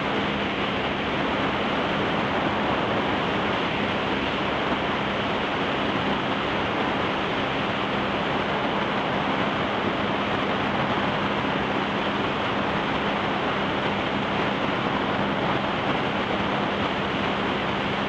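Steady rushing noise of a towboat running at speed, wind and water spray, with a low, even drone from the boat's engine underneath.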